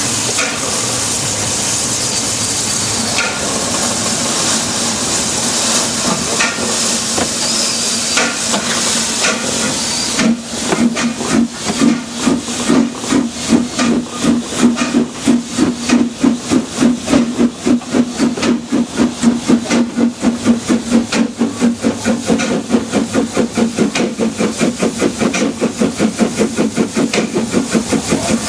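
Narrow-gauge steam locomotive 101: a steady hiss of steam, then, about ten seconds in, rhythmic exhaust chuffs at about four beats a second that carry on to the end.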